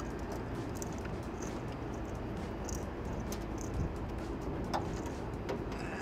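Small sharp clicks and light knocks of wire terminals being unplugged and a circuit board being handled inside an outdoor air-conditioning unit's electrical panel, with a firmer knock about three-quarters of the way in. Over a steady low rumble.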